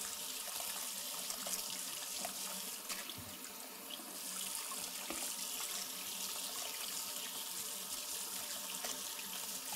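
Kitchen faucet running in a steady stream into a water-filled metal strainer set in a bowl, as hands rinse pieces of embroidery under the flow.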